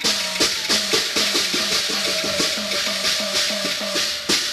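Chinese opera percussion band playing a fast, even run of gong and cymbal strokes, about five a second, over a steady ringing tone. It ends with a loud crash near the end.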